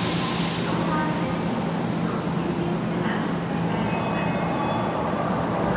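Tokyo Metro 9000-series subway train standing at a station platform with its doors open: a steady electrical hum from the train, a hiss that stops about half a second in, and a faint high whine that starts about three seconds in and slowly falls in pitch.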